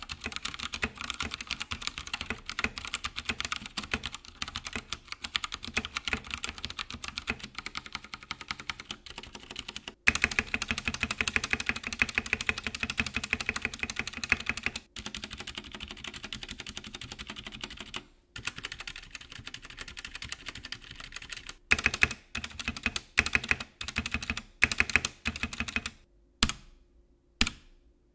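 Akko 3087 mechanical keyboard with Akko tactile switches being typed on: fast continuous typing in a few takes, then slower, separate key presses near the end.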